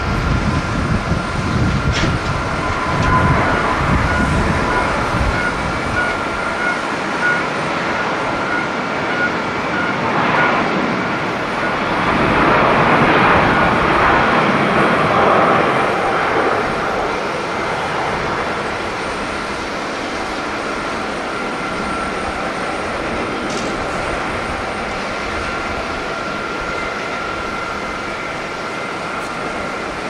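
Airbus A350's Rolls-Royce Trent XWB turbofans at takeoff power: a rushing jet roar that swells to its loudest about halfway through as the airliner rolls past and lifts off, then eases off as it climbs away, with a steady high whine running underneath.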